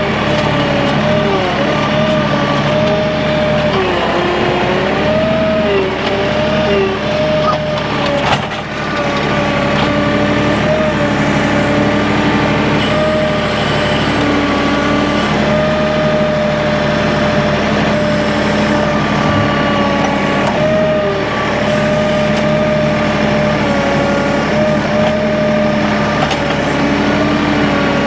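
A machine's engine running steadily with a high whine that wavers slightly in pitch, and a single sharp knock about eight seconds in.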